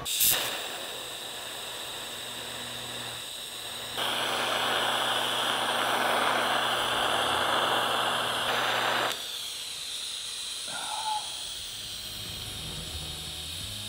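TIG welding arc on a chopper frame's tube joint: a sharp click as the arc strikes, then a steady hiss with a low electrical hum. It gets louder for about five seconds in the middle, then cuts off suddenly about nine seconds in, leaving a fainter hiss.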